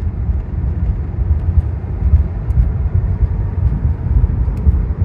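A car driving along: steady, loud low rumble of road and engine noise.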